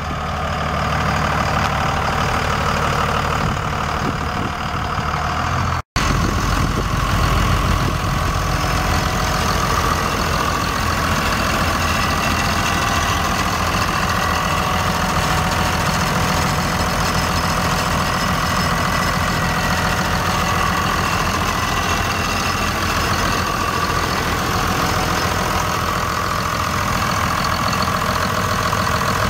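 Dodge Ram 2500's 5.9-litre 24-valve Cummins inline-six turbo diesel idling steadily. A brief gap about six seconds in, after which it is heard close up under the open hood and louder.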